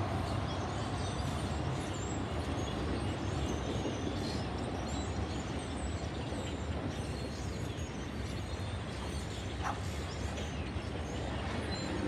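Union Pacific manifest freight train passing in the distance, a steady rumble of its cars rolling by.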